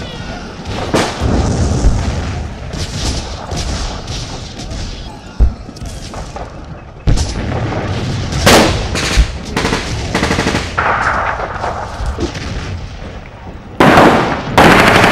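Gunfire from reenactors' blank-firing weapons: scattered single shots and short rapid bursts, with the loudest shots close together near the end.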